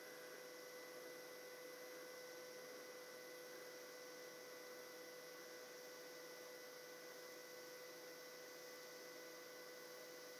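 Faint steady hum with a thin high tone over light hiss, from a DC TIG welding arc running at about 77 to 80 amps on a small MT-125 inverter TIG welder.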